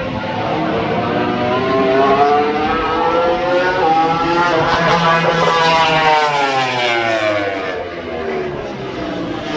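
MotoGP racing motorcycle engine at high revs. Its pitch climbs for about five seconds, then falls steadily away.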